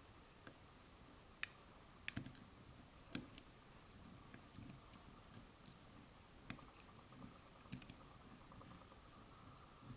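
Faint, irregular metallic clicks of a lock pick and tension wrench working the pins inside a Lily Water padlock, with about a dozen sharp ticks spaced unevenly.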